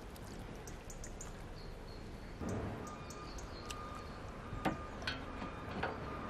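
Small birds chirping and twittering in the background. About two and a half seconds in there is a soft thud as a piece of boiled beef short rib is laid on the pile on an enamel plate, and a few light clicks of utensils follow near the end.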